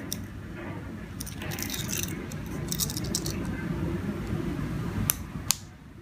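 Plastic key-fob remote handled with light rustling and clattering, then about five seconds in two sharp clicks less than half a second apart: the 12 V SRD-12VDC-SL-C relay on a 433 MHz receiver board switching on and off.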